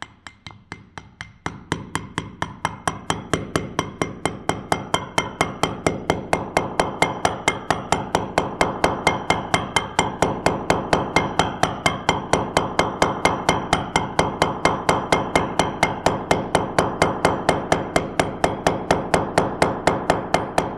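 Steady, rapid hammer blows, about four a second, on a tubular driver pressing a new wheel bearing into a motorcycle rear hub; the strikes build in strength over the first couple of seconds.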